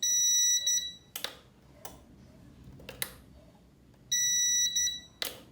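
Electronic alarm beeping twice, about four seconds apart, each beep a steady high tone lasting under a second, with a few sharp clicks in between.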